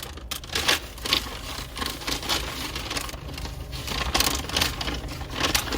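Takeout bag and food packaging being handled and opened, with irregular crinkles and clicks.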